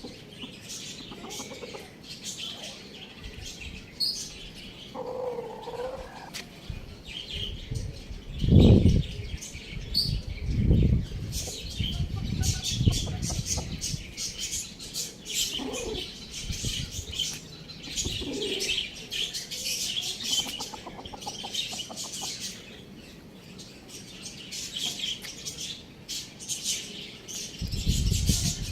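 Many small birds chirping and chattering without pause, with several bursts of wing flapping, the loudest about a third of the way in and again near the end.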